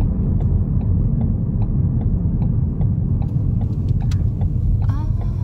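Car road and engine noise heard from inside the cabin while driving: a steady low rumble, with faint regular ticking about two or three times a second.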